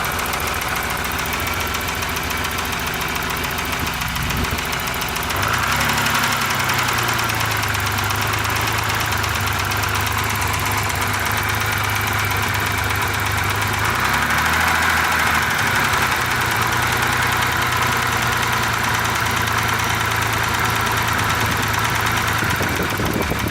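BMW M30B34 3.4-litre straight-six idling, blipped up briefly twice, about five and a half and fourteen seconds in, before settling back. Its running carries a noise that the owner cannot place as a knock or a tap.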